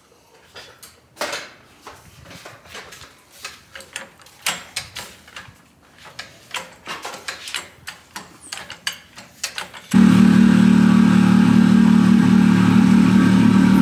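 Scattered metal clinks and knocks of tools and parts being handled. About ten seconds in, a loud, steady engine-like drone cuts in suddenly and stops just as suddenly.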